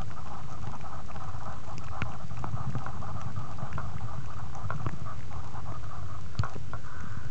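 Muffled underwater noise picked up by a compact camera inside a soft plastic waterproof case: a constant low rumble with many scattered small clicks and crackles.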